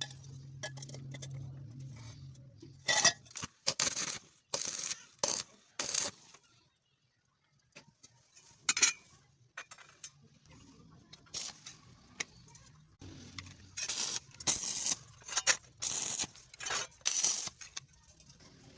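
Sharp metallic clinks and knocks, a dozen or more separate strikes of metal on metal, with a low steady hum under the first few seconds.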